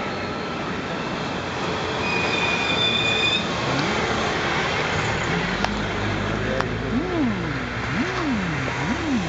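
Road traffic passing close by. A high-pitched squeal lasts about a second and a half from about two seconds in. Near the end a low tone slides up and down three times, about a second apart.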